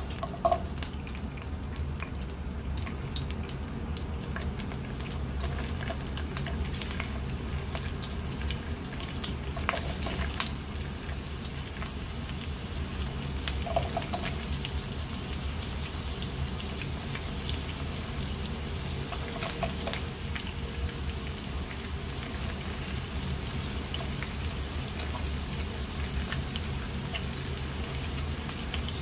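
Sliced onions frying in hot oil in a nonstick wok: a steady sizzle with scattered crackles and pops, over a steady low hum.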